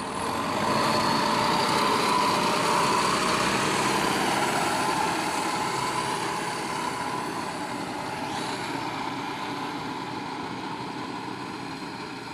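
Backhoe loader's diesel engine running steadily, loudest over the first few seconds, then gradually fading.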